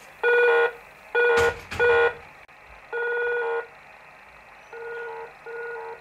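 A toy radio-control transmitter's keyed signal received on a transceiver tuned to 27.145 MHz upper sideband, heard as a beeping tone switched on and off in Morse-like dots and dashes. There are about six beeps, and the last two are fainter.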